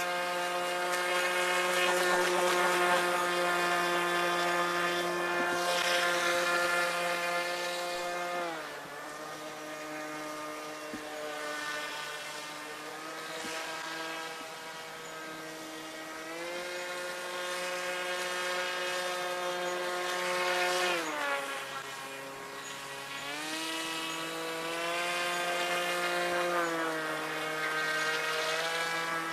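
Radio-controlled model boat's motor running with a steady buzz. Its pitch and loudness drop about a third of the way in, climb again past halfway, then drop and climb once more near the end as the throttle is eased off and opened up.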